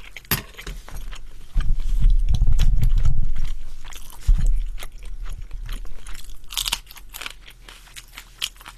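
Close-miked chewing and crunching of food, with many small wet mouth clicks. A deep muffled rumble comes about a second and a half in and lasts about two seconds, with a louder crunch near the end.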